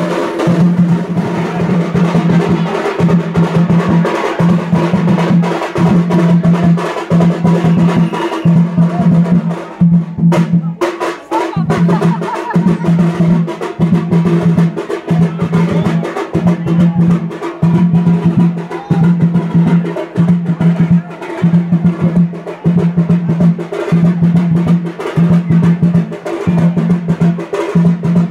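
Drums playing a steady, repeating beat, roughly one heavy stroke a second, with rolls in between.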